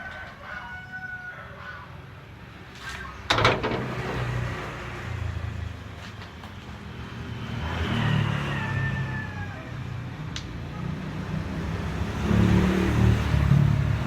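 A motor vehicle engine running with a low rumble, setting in after a sharp clattering burst about three seconds in and getting louder near the end.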